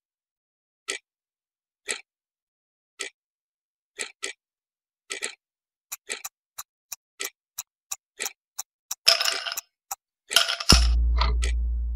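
Countdown-timer clock-ticking sound effect: a tick about once a second, coming faster, about three a second, in the second half. Near the end come two louder noisy bursts and then a long low tone that fades slowly, marking time running out.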